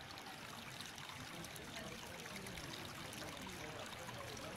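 Steady trickle of water: thermal spring water running in a shallow channel over the travertine terraces.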